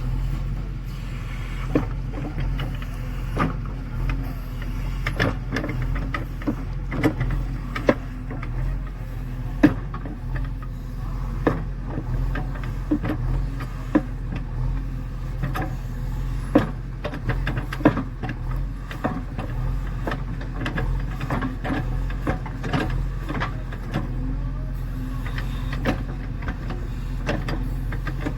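Heavy diesel machine running steadily, with many sharp clanks and rattles at irregular moments.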